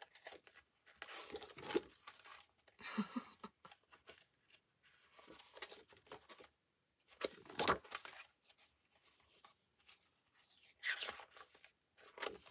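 Paper pages of a spiral-bound desk calendar being flipped over and handled: a handful of short rustling bursts, the loudest about seven and a half seconds in.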